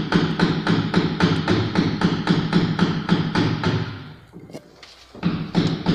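Socket wrench ratcheting quickly while a bolt is run out, a fast even clicking of about eight clicks a second that stops for about a second near the end and then starts again.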